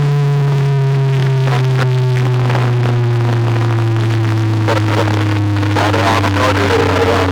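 A loud deep bass tone from a DJ competition sound system, gliding slowly and steadily downward in pitch, with a noisy hiss and a few clicks beneath it.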